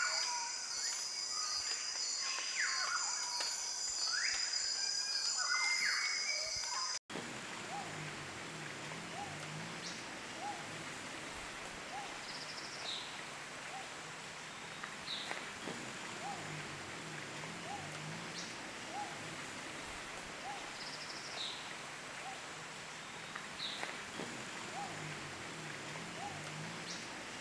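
Short intro music with chiming tones, cut off about seven seconds in. Then forest ambience: a steady hiss, a bird repeating a short note about once a second, a few clusters of low calls and occasional high chirps.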